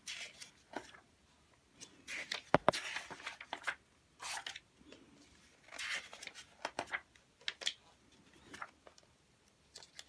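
Magazine pages being turned and handled: a string of separate paper swishes and crackles, with two sharp paper snaps about two and a half seconds in.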